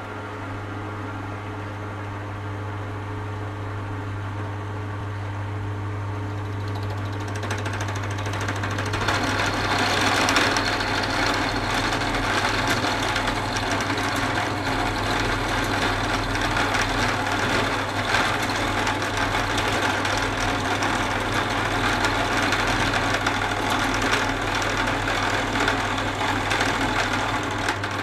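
Drill press motor running with an end mill bit chucked in, used side-on as a makeshift milling machine. It hums steadily at first, then about eight seconds in the cutter starts biting into the metal reactor frame, and a loud, steady grinding cutting noise joins the hum and continues.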